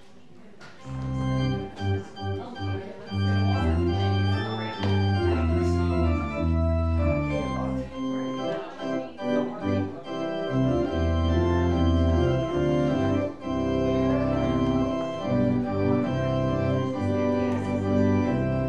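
Church organ playing held chords over a moving bass line, starting about a second in.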